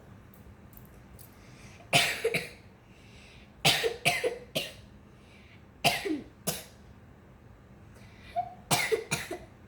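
A person coughing in four short fits, each of two or three quick coughs, with pauses of about two seconds between fits.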